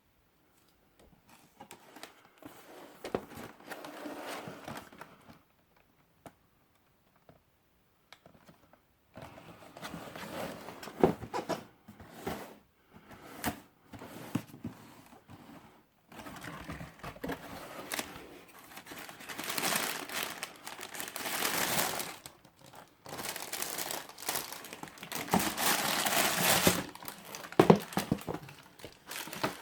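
Packaging crinkling and rustling in irregular bursts, with occasional sharp clicks and knocks, as a pair of hiking boots is unboxed; the handling gets louder in the second half.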